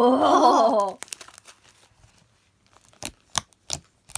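A girl's loud "Oh!", then quiet crackling and a few sharp pops near the end as fluffy slime is squeezed and stretched by hand.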